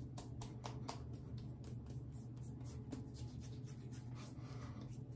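Hands patting and rubbing aftershave splash into freshly shaved skin: a run of faint, light pats, densest in the first few seconds, over a steady low hum.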